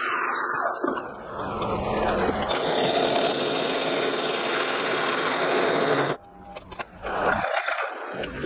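Benchtop drill press boring through a 10 mm steel plate: the motor running and the bit cutting metal with a steady grinding noise that stops about six seconds in as the drilling ends.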